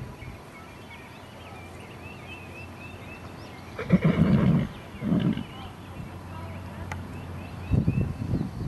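A horse whinnies about four seconds in, calls again briefly a second later, and once more near the end, with birds chirping faintly.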